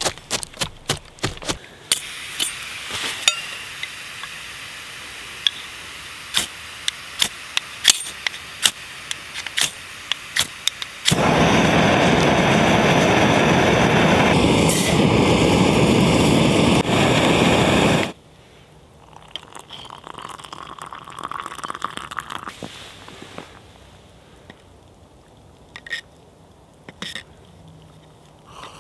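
An old Primus multi-fuel burner hisses with gas while a ferro rod is struck over it again and again, giving sharp scraping clicks. About eleven seconds in the burner lights and runs loud and steady for some seven seconds, then cuts off suddenly, leaving small metal clinks and rustling.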